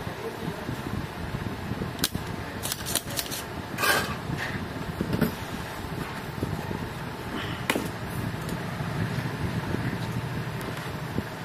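Sharp clicks and knocks of bench repair tools, a spring desoldering pump and a soldering iron, against an inverter circuit board over a steady background hum. A cluster of clicks comes two to four seconds in and another single click near eight seconds.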